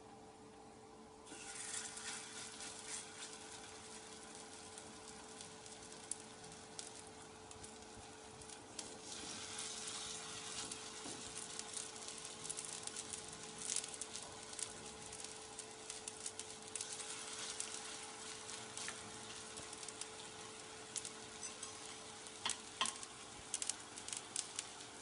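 Dahi kebabs sizzling as they shallow-fry in olive oil on a hot tawa. The sizzle starts suddenly about a second in, with steady crackling and small pops throughout and a few louder pops near the end, over a faint steady hum.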